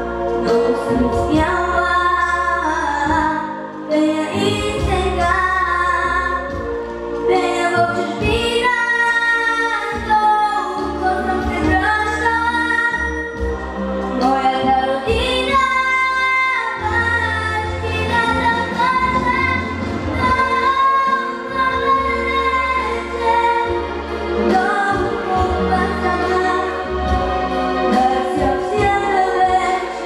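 A young girl singing solo into a microphone over instrumental accompaniment with a sustained bass line, her voice carrying the melody in long held and bending notes.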